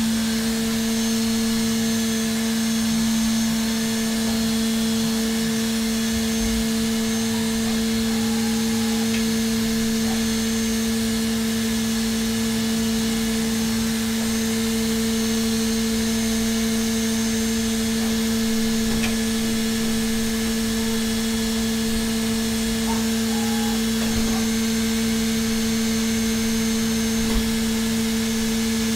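Hermle C400 five-axis CNC mill's spindle turning a small carbide cutter at steady high speed while it machines dry aluminium: a steady whine over a light hiss of cutting.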